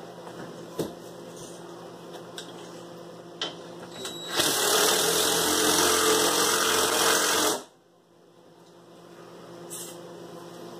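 Cordless drill driving a screw through a 2x4 into a wall stud: it runs steadily for about three seconds from about four seconds in, then stops abruptly. A couple of light knocks come before it.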